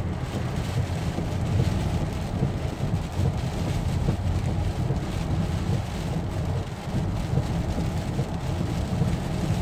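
Heavy rain and strong hurricane wind on a moving car, heard from inside: a steady low rumble under an even hiss of rain.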